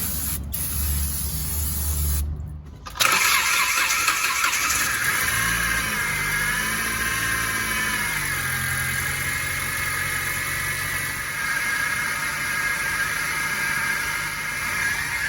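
2014 Chrysler 200's 2.4-litre four-cylinder engine running with a freshly fitted water pump and serpentine belt. After a brief break in the sound, a high whining squeal over the engine sets in about three seconds in, wavers in pitch for a couple of seconds, then holds steady.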